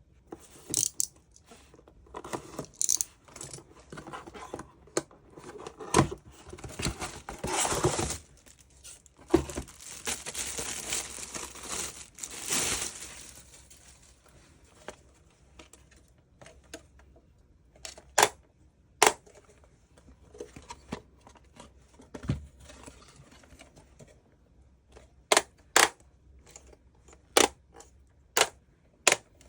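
Packaging being handled: rustling, crinkling and tearing for the first dozen seconds, then scattered sharp clicks and taps.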